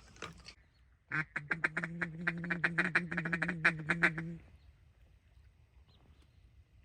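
Duck call blown in a fast, even run of about eight quacking notes a second at one steady pitch, lasting about three seconds.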